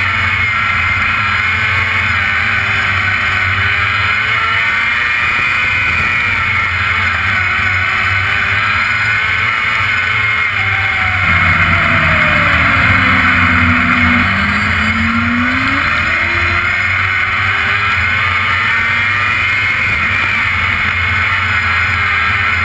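Open-wheel dirt-track race car's engine heard from onboard, running hard, its pitch rising and falling every few seconds as it goes through the turns. About halfway through, a second, lower engine note dips and climbs as another car runs alongside.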